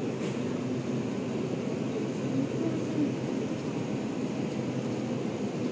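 Steady low hum and rush of air in a supermarket produce aisle, from the open refrigerated display cases and store ventilation.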